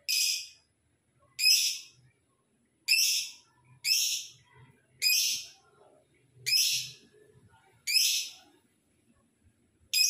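Lovebird giving short, shrill calls, seven in a row, one every second or so, each cut short and fading quickly.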